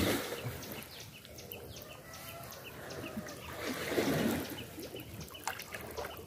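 Water sloshing and trickling as someone wades and gropes for fish by hand, swelling to a louder slosh about four seconds in, with a steady series of short high chirps behind it.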